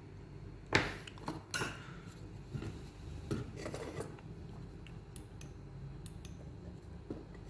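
Small hard objects, such as tools and parts on a workbench, being handled: a sharp knock about a second in, then a few more clinks and some clatter over the next three seconds, after which it goes quiet apart from a low background hum.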